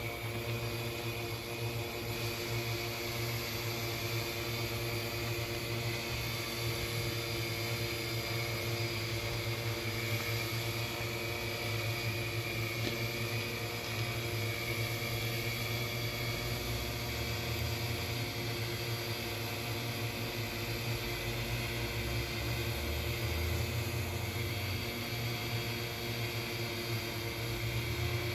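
Multirotor drone hovering, its propellers and motors giving a steady whirring hum made of several steady tones over a hiss.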